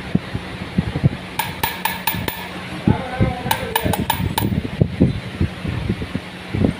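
Metal clinking and tapping, as of tools on metal parts: two quick runs of sharp ringing clicks over repeated dull knocks and a steady low hum.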